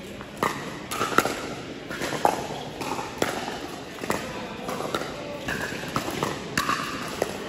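Pickleball paddles striking a plastic ball back and forth in a doubles rally: a string of sharp pops, about one a second.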